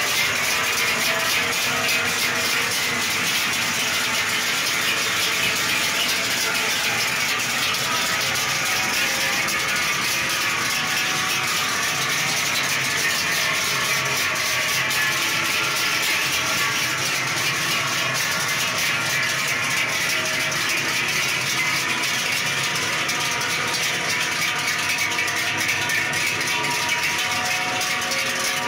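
Large cowbells hung on a passing herd of cows, clanging together in a dense, steady, uneven jangle of many overlapping ringing tones.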